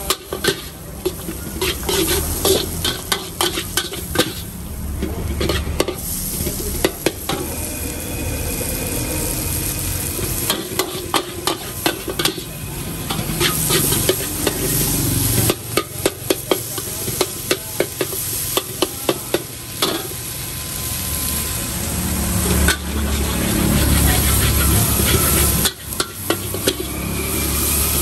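A metal ladle scrapes and clanks repeatedly against a steel wok as mee goreng (fried yellow noodles with cabbage) is stir-fried, over a steady sizzle of frying.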